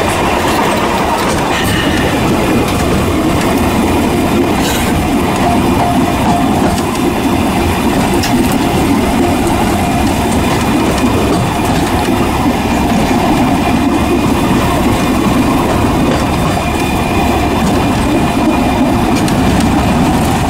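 A tourist train's carriages running along the track, heard from a carriage window: the steady running noise of wheels on rails, without a break.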